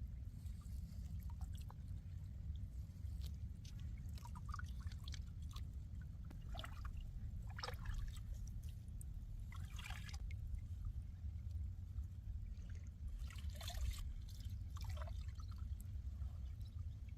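Water splashing and trickling in short, irregular bursts over a steady low rumble.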